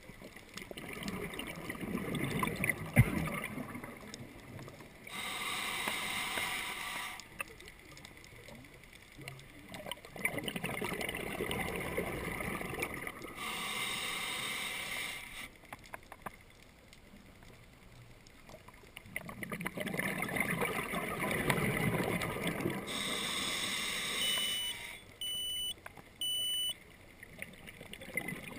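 Scuba diver breathing through a regulator underwater: a rumbling, gurgling burst of exhaled bubbles followed by a hissing inhale, three breaths about nine seconds apart. Near the end, three short electronic beeps.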